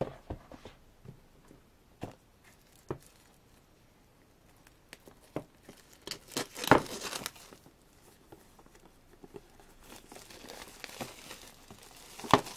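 Plastic shrink-wrap on a sealed CD album crinkling and tearing as it is handled and unwrapped, with scattered light taps of the album case. A louder crackle comes about halfway through, soft crinkling follows near the end, then a few sharp clicks.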